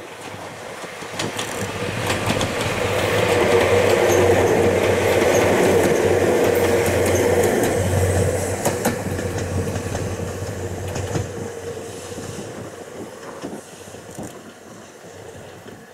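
Ohmi Railway 800-series electric train passing by: the running noise and the clack of its wheels over rail joints swell, peak for several seconds, then fade as it moves away.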